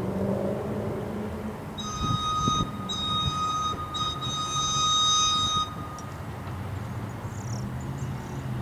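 Amtrak GE P42DC locomotive horn sounding several blasts from about two seconds in, the last one longest, over a steady low rumble of the approaching train.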